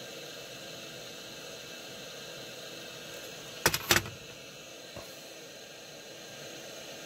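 Steady background hiss, with a quick cluster of sharp clicks and knocks a little past halfway as hand tools are handled on the workbench: the soldering iron is set aside and a magnifying loupe is picked up.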